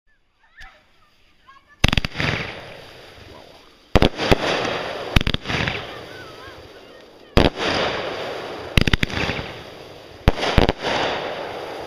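Aerial fireworks firing: about ten sharp bangs, several in quick pairs, starting about two seconds in, each followed by a fading crackle as the shots climb.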